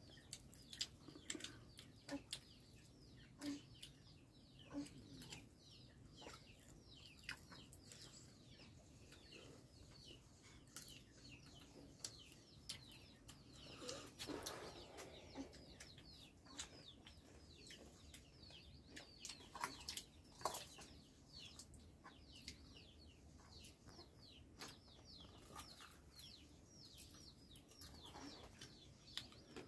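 Faint, many short falling chirps of birds, with scattered clicks and a few louder rustling knocks about fourteen and twenty seconds in.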